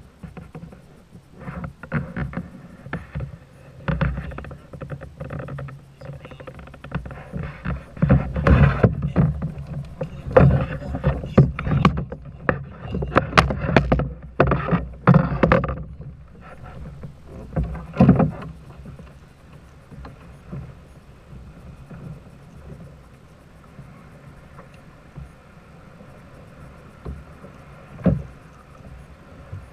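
Irregular knocks, bumps and splashing around a small fishing boat, coming thick and loud in the middle and tapering off, over steady background noise.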